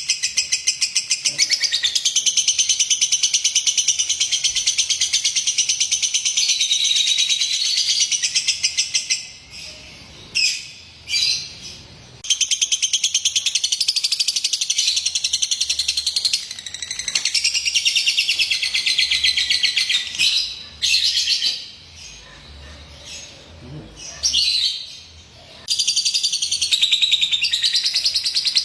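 Lovebird chattering in long, rapid, high-pitched runs of chirps, breaking off briefly near the middle and again for a few seconds before the end.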